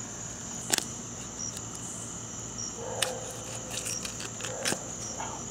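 Crickets chirring steadily, a constant high-pitched trill, with a few faint clicks spaced through it.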